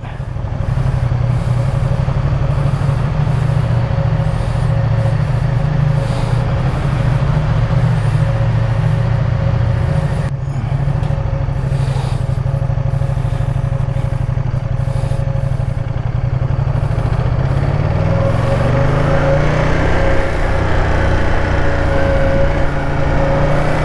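Ducati Diavel's L-twin engine and stock exhaust under way, a steady low drone with wind noise and a thin steady hum above the exhaust note. About three-quarters through, the engine note climbs in pitch as the bike accelerates.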